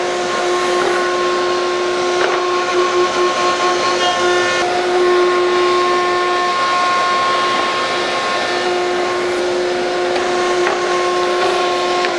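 Festool OF1400 router spinning a 1/8-inch roundover bit in a router table, a loud, steady high whine over a rushing hiss, as board edges are rounded over in quick passes.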